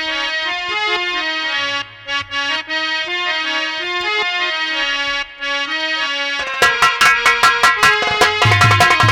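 Harmonium playing a stepping folk melody on its own; about six and a half seconds in, drums enter with fast, dense strokes beneath it.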